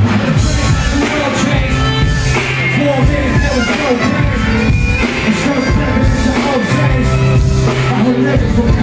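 Live rock/hip-hop band music played loud through a concert PA, with a steady bass line and a voice singing or rapping over it.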